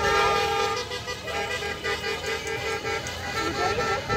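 Vehicle horn honking: one long blast, then a quick run of short toots.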